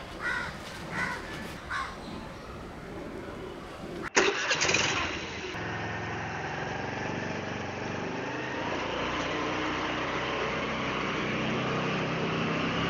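Motorcycle engine starting with a sudden loud burst about four seconds in, then running steadily and growing slightly louder.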